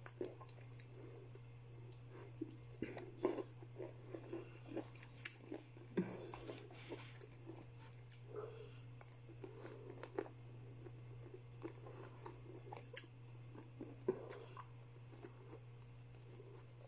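A person chewing fried chicken, with irregular small clicks and mouth noises as bits are picked off by hand and eaten, over a steady low hum.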